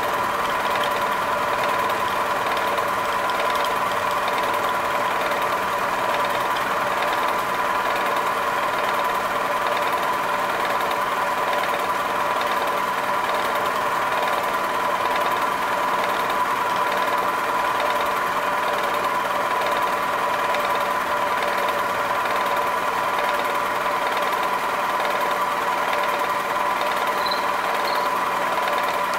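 Vertical milling machine running, its end mill cutting a metal part while a rotary table swings it through an arc slot. A steady high whine with an even level throughout.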